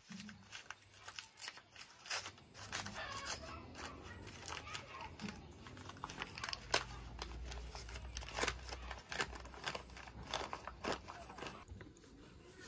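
A flour bag being torn open and crinkled by hand, a long run of sharp rips and crackling rustles that dies away near the end.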